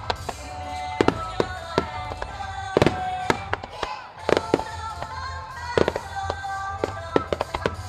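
Aerial firework shells bursting in a rapid, irregular string of sharp bangs, well over a dozen, over continuous music.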